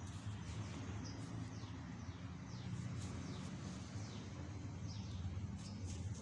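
Birds chirping: many short calls that fall in pitch, several a second, over a low steady rumble.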